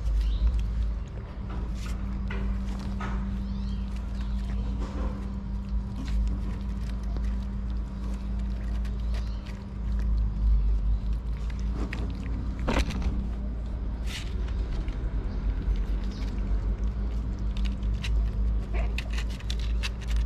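Kittens eating wet cat food right beside the microphone: scattered small chewing and smacking clicks over a steady low rumble, with one short cat cry about thirteen seconds in.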